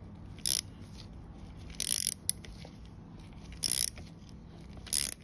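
Ratcheting wrench clicking in four short bursts about a second and a half apart, turning the screw of a chain press tool that is pressing the outer plate of a rivet master link onto a motorcycle chain.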